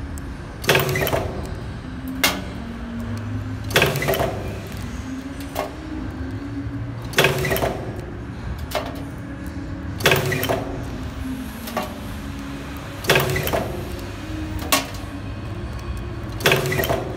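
Nylon cable tie stainless steel barb inserting machine cycling: a loud mechanical clack about every three seconds, six in all, each followed a little later by a lighter click, over the machine's steady hum.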